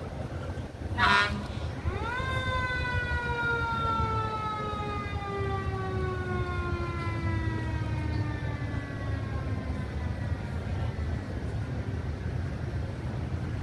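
Fire truck siren sounded in tribute: a short horn blast about a second in, then the siren winds up quickly and slowly winds down, its pitch falling over about eight seconds. A steady low rumble runs underneath.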